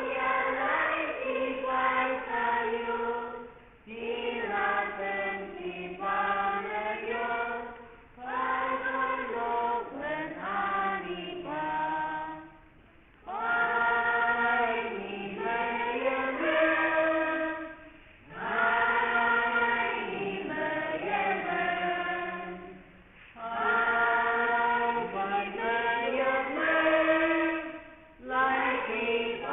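A choir singing in phrases of about five seconds, each followed by a brief pause for breath.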